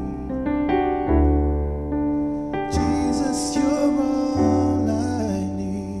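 Keyboard music with held piano-like chords that change every second or so, and a singing voice over them from about halfway through.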